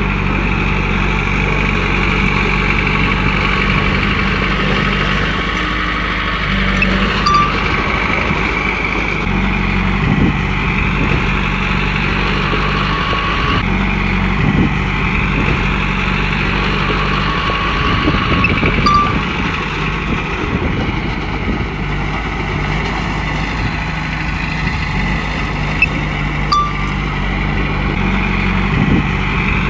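Komatsu crawler bulldozer's diesel engine running as it works, its pitch stepping up and down, with a steady high whine over it and a few short sharp clanks.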